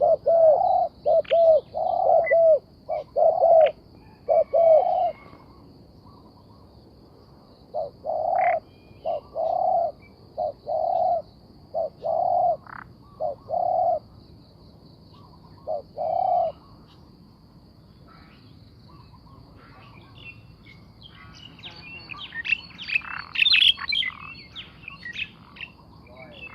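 Spotted dove cooing: short, clear coo notes repeated in phrases, one run at the start, another from about eight seconds in, and a single phrase near sixteen seconds. Near the end there is a brief flurry of higher chirping.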